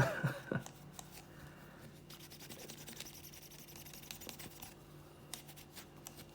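Faint rubbing and light scratching of a Cape Cod polishing cloth worked over a sonic screwdriver prop, with a few small clicks, over a low steady hum.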